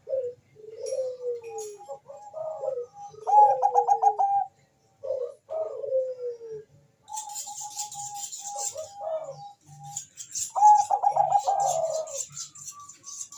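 Zebra dove (Bangkok-type perkutut) cooing: repeated phrases of falling coos and quick rolling trills, one after another with short gaps. A high, hissing chirr joins about halfway through.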